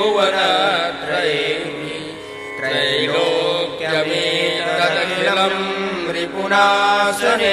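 A single voice chanting Sanskrit hymn verses to a melody in slow phrases, over a steady drone accompaniment.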